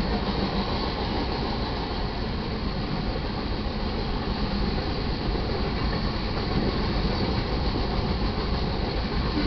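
Iron ore cars of a freight train rolling past, a steady noise of steel wheels on the rails.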